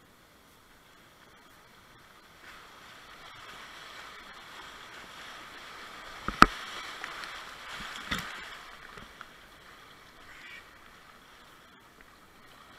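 Whitewater rushing around a kayak running a rapid, the water noise building a few seconds in and easing near the end. Two sharp knocks about halfway through, a second and a half apart, the first the loudest sound.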